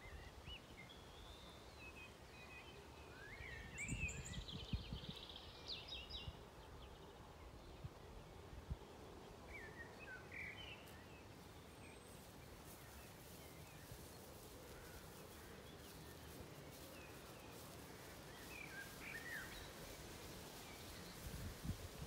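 Quiet pasture ambience with songbirds singing in short chirping phrases now and then. There are a few soft low knocks about four seconds in.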